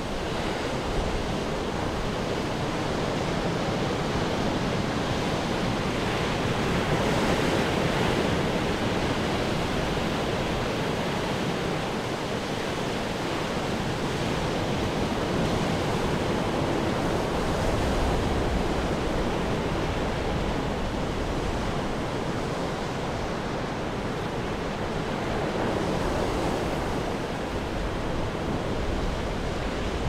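Ocean surf breaking on a rocky shore: a continuous wash of water that surges a little louder about every ten seconds.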